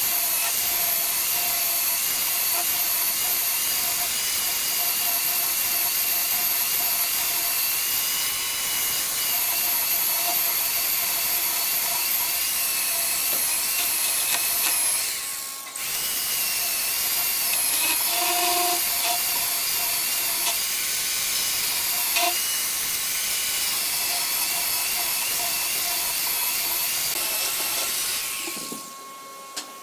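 Corded electric chainsaw cutting through a thick wooden slab, its motor whining steadily as the chain rasps through the wood. It cuts out briefly about halfway, starts again, and stops near the end.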